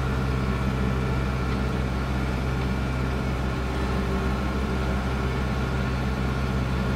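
Kubota Grand L4760 tractor's diesel engine running steadily, driving a front-mounted PTO snowblower that is throwing snow.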